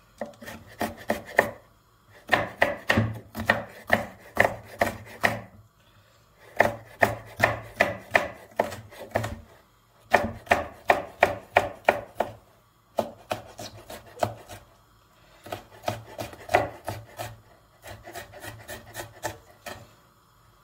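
Chef's knife dicing a red bell pepper on a wooden cutting board: quick knocks of the blade through the pepper onto the wood, about four a second, in runs of a few seconds with short pauses. The strokes are softer in the last few seconds.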